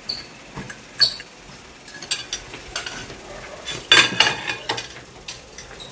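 Dishes and cutlery clinking on a dining table as bowls and utensils are handled. The sharp clinks come in scattered bunches, the loudest about four seconds in.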